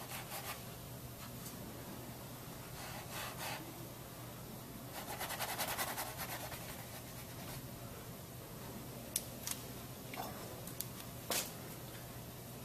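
Oil-paint brush strokes on canvas: soft scratchy rubbing, with a run of quick back-and-forth dabs in the middle and a few sharp ticks near the end.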